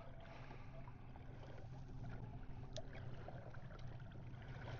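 Faint water lapping against a drifting kayak's hull, with a low steady hum and a few light ticks.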